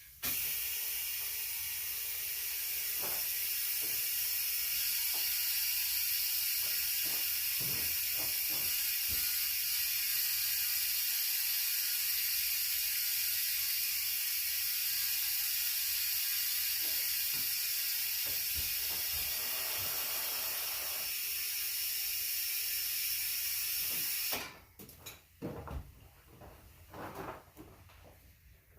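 Compressed air hissing steadily from an air-compressor hose into a tire being inflated to seat its bead, with scattered small clicks and knocks. The hiss cuts off suddenly about 24 seconds in, leaving a few knocks.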